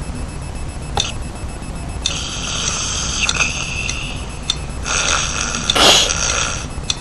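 Electronic beeping over a steady low hum, with a brief loud noise about six seconds in.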